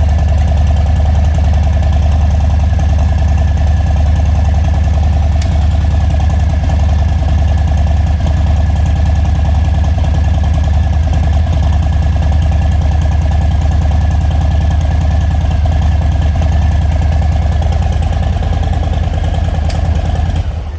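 Harley-Davidson Milwaukee-Eight V-twin idling steadily through a newly installed Bassani Road Rage III 2-into-1 stainless exhaust on its first run, while the new pipe's finish cures. The engine is shut off near the end.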